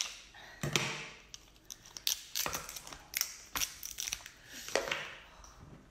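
Kitchen scissors snipping through a cooked king crab leg's hard shell, then the shell cracked and pulled apart by hand. A string of irregular sharp crunches and snaps.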